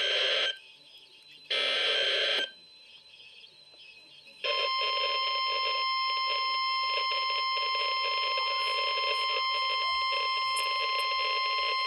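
A NOAA weather radio's speaker sounding an alert: the last two buzzy one-second bursts of the SAME data header, then, after a short pause, the steady high 1050 Hz warning alarm tone starting about four seconds in.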